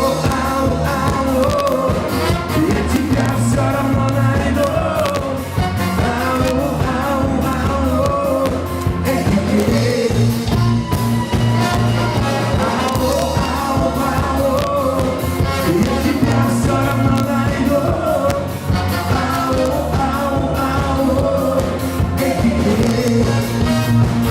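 Live cover band playing a pop-rock song, with a lead vocal over a steady drum beat and bass.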